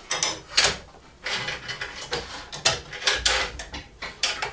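Aluminium guide rail being set onto a metal rail-hinge plate and secured with thumb screws from underneath: an irregular run of sharp metallic clicks and knocks, with a duller thump about three seconds in.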